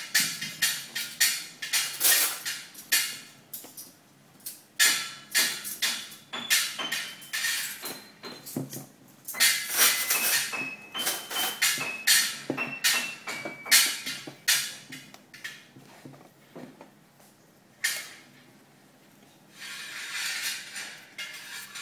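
Wire pastry blender repeatedly chopped down into butter and flour in a stainless steel bowl, about two strokes a second, each a scraping clink, some with a short metallic ring where the wires strike the bowl. The strokes stop briefly near the end, then a softer stretch of scraping follows.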